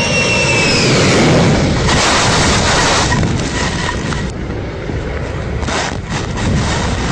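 A jet aircraft passes low overhead: a high whine falls in pitch in the first second, then a loud rumbling noise carries on, with a few sharp crackles near the end.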